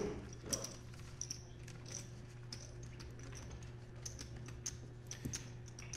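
Poker chips clicking faintly and irregularly as they are handled at the table, over a steady low hum.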